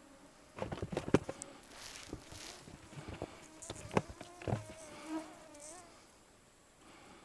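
Several sharp knocks and rustles, then a flying insect buzzing close by for about a second with a wavering pitch.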